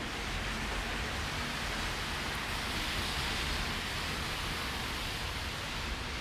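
Steady rushing noise, even and unbroken, with a low rumble under it and no distinct events.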